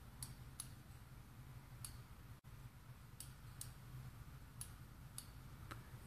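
Faint clicks from a rotary switch fitted inside a 3/4-inch brass gate valve as its handwheel is turned, about eight clicks at uneven spacing: the switch turning on and off as it should.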